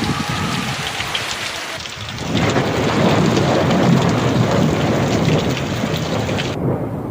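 Heavy rain falling, with a long roll of thunder building about two seconds in and rumbling on for several seconds.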